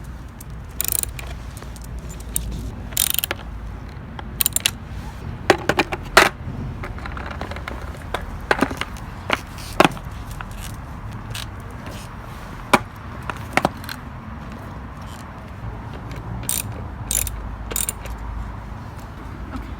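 A hand wrench working the kingpin nuts of a skateboard's trucks, in irregular metallic clicks and clacks, tightening trucks that were too loose.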